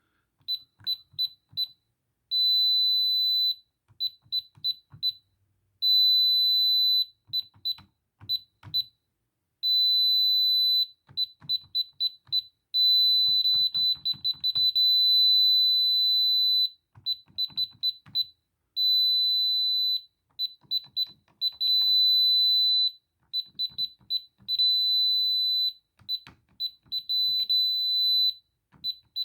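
Alarm system keypad beeping as its keys are pressed: single high-pitched beeps in quick runs of three to six, alternating with longer steady tones of a second or two, with faint knocks from the buttons.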